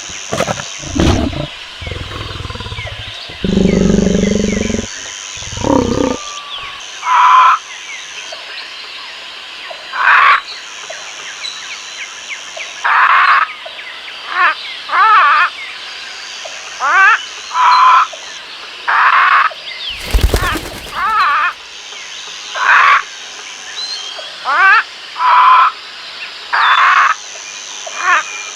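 Wild animal calls: a deep roar of a big cat a few seconds in, then a run of short, loud calls about once a second over a steady high background hiss.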